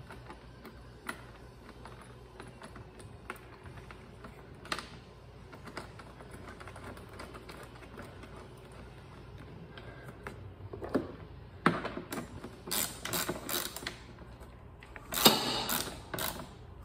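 Small clicks and taps of hands working wire connectors and plastic parts at a mower's battery tray, then a run of louder clattering knocks starting about eleven seconds in, the loudest near the end.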